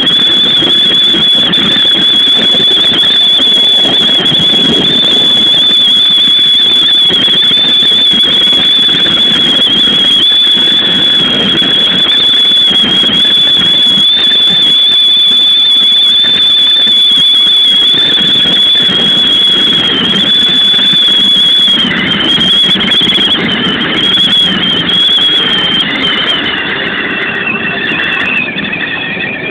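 Keikyu New 1000 series train running at speed, heard from the front of the train: loud wind noise and running rumble with a steady high-pitched whine over it. Past the middle the whine wavers, and near the end it slides down in pitch.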